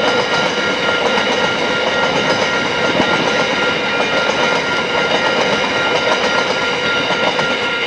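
Coal train wagons rolling over a level crossing, the wheels clattering steadily over the rails, with steady high tones running alongside.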